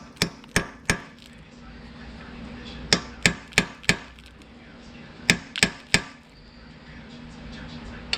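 Hammer striking metal engine parts: three quick groups of three or four sharp, ringing blows, trying to loosen threaded pieces that will not move.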